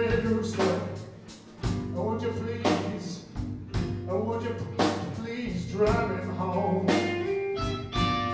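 Live blues band playing a slow blues with electric guitars and a drum kit, drum hits falling about once a second under a bending melodic lead line.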